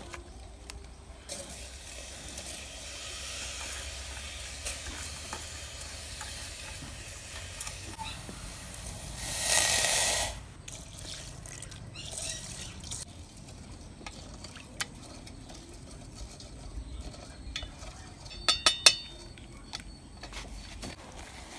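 Water poured into a stainless steel pot of rice, a loud splash about a second long midway, amid lighter water and stirring sounds. Near the end, a few sharp clinks of a wooden spoon against the metal pot.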